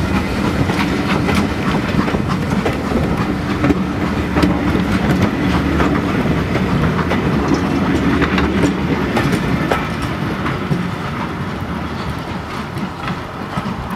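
Passenger coaches of a train rolling past at a platform, their wheels clicking over the rail joints over a steady rumble that eases off near the end as the last coach draws away.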